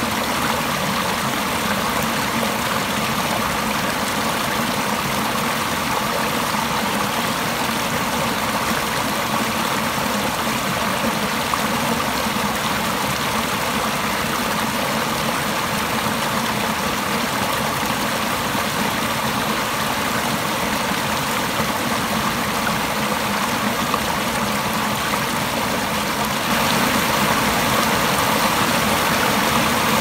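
A small stream cascading over mossy boulders into a pool: a steady rush of splashing, churning water. It grows slightly louder and brighter near the end.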